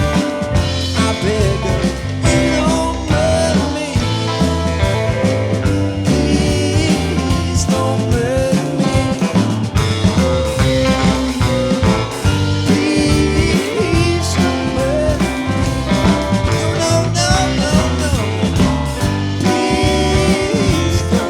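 Live rock band playing: drums, bass and guitars, with a melody line bending in pitch over a steady beat.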